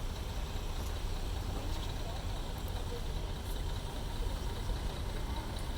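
Low, steady rumble of a heavy engine idling, with faint voices in the background.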